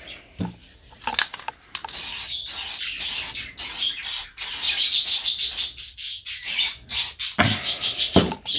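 Aerosol can of adhesive plastic primer spraying in a series of short hissing bursts onto a plastic headlight surround, a priming coat so the paint will stick.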